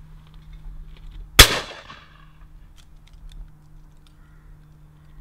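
A single shot from a 16-gauge Longthorne Hesketh Deluxe shotgun firing a 21-gram cartridge, about a second and a half in, with a short echo trailing off after it.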